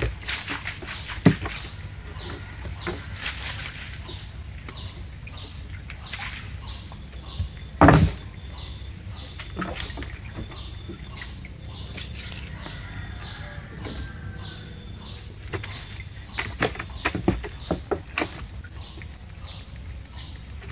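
Collapsible net fish traps being handled and stacked on a wooden boat deck: frequent knocks and rattles of the trap frames against the planks, with one heavy thump about 8 seconds in. A high chirping repeats about twice a second in the background.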